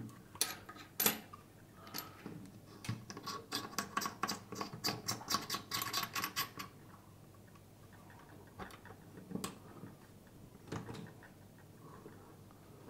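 Clicks and scraping as a small monitor is fitted into the clamp of a metal-and-plastic suction-cup mount's articulating arm and adjusted, with a quick run of ticks, about seven a second, lasting several seconds.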